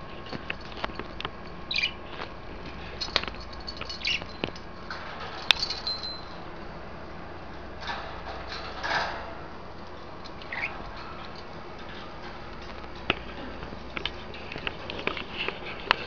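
Budgerigars in a cage giving short, soft chirps over scattered small clicks and taps of beaks and feet on perches and toys. About five and a half seconds in there is one sharp clink with a brief ring, like the small bell on a hanging cage toy.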